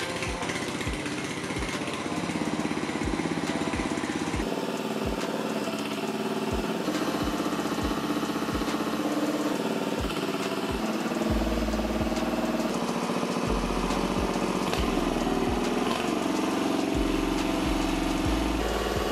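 Small single-cylinder gasoline engine (rated 7.5 hp) driving a hydraulic pump, running steadily. Its tone shifts abruptly a few times.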